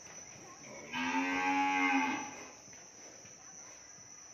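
One cow moo lasting a little over a second, starting about a second in.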